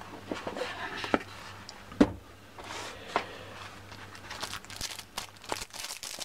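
A cardboard box being opened by hand: scraping and handling noises with one sharp knock about two seconds in, then the cellophane sleeve of a paper manual crinkling near the end.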